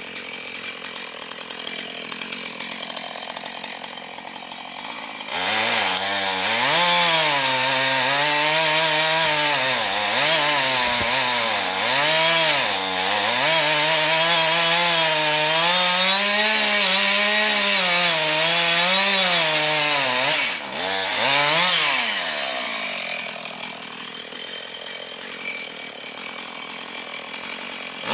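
Husqvarna chainsaw with a 16-inch bar idling, then revved up about five seconds in and cutting into a dead ash trunk for some sixteen seconds, its engine pitch dipping and recovering as the chain loads up in the wood. It drops back to idle, then revs up again right at the end.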